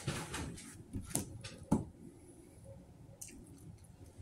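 A person chewing a mouthful of pizza with the mouth closed: a few short wet clicks and squishes in the first two seconds, quieter after.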